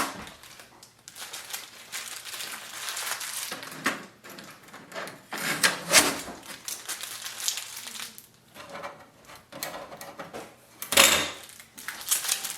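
Packing tape being peeled off a laser printer's plastic casing, with crinkling and handling noise, and two sharp clacks: one about halfway through, one near the end.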